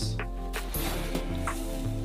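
Background music with a steady, held bass line, with a few brief rustles of a plastic bag.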